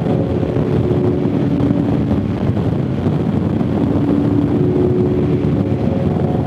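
Harley-Davidson motorcycle's V-twin engine running steadily at road speed, mixed with wind noise on the microphone.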